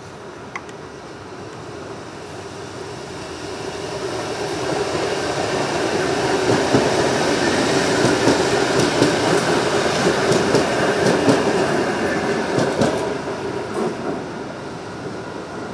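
Adelaide Metro 4000-series electric train passing close by, its rumble building to a peak about halfway through and then fading as it moves off. A few sharp clicks come from the wheels near the end.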